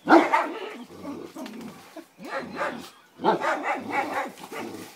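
Dogs growling and barking during a tug-of-war over a rope toy, in a string of short bursts. The loudest comes right at the start.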